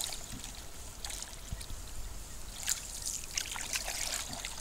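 Canoe paddle strokes in calm water, with water trickling and splashing off the paddle blade in several short splashes.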